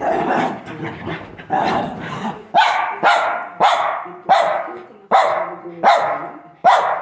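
A dog barking over and over, about eight sharp barks spaced roughly a second apart or less.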